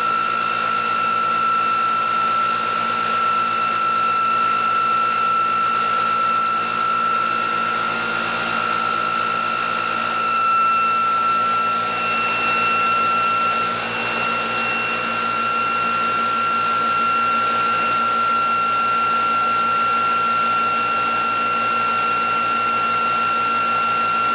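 Electric drive motor of a bench test rig running at speed, a steady high-pitched whine with a few overtones over a low hum. The pitch shifts slightly and the level dips briefly about halfway through.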